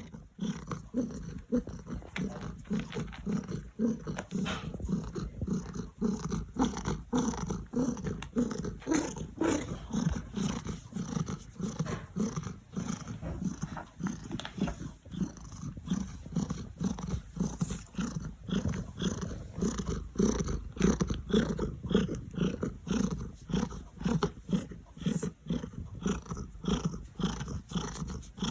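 Domestic cat purring close to the microphone: a steady low rasp that swells and eases in even cycles with its breathing.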